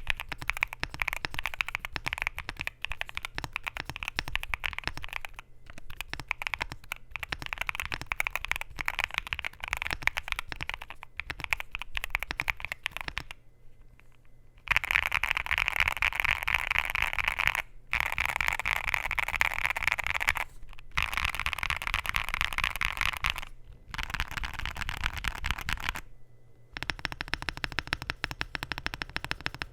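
Typing on a Luminkey65 mechanical keyboard with Gateron Sylva switches, a polycarbonate plate and PBT Cherry-profile keycaps: a steady clatter of keystrokes in runs, broken by short pauses. The typing is at its fastest and loudest from about halfway through.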